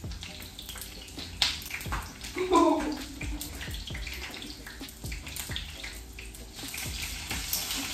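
Sausages frying in oil in a pan on a gas stove: a steady sizzling hiss with scattered small pops. A short vocal sound, a laugh or hum, comes about two and a half seconds in.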